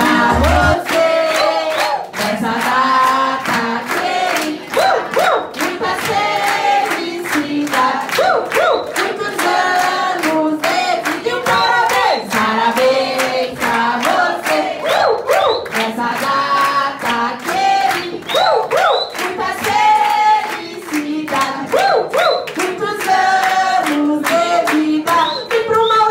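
A group of people singing a birthday song together while clapping along in a steady rhythm.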